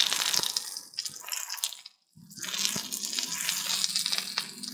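Bell peppers and tomato wedges sizzling in oil in a hot cast-iron skillet, a steady hiss with crackling as the tomatoes go in. The sizzle breaks off briefly about two seconds in, then carries on.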